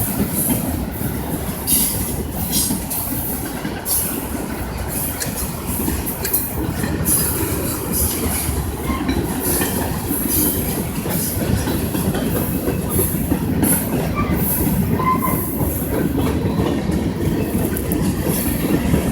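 Freight cars of a manifest freight train rolling past: a steady wheel-on-rail rumble with irregular clacks from the rail joints.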